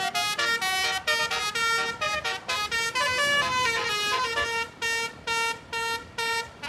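Basuri multi-tone horn playing a quick melody, its notes changing pitch every fraction of a second. After about five seconds the tune turns into short separate blasts with brief gaps between them.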